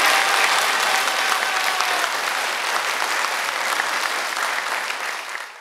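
Audience applauding at the end of a piece. For the first two seconds an ocarina's steady high note is held over the clapping.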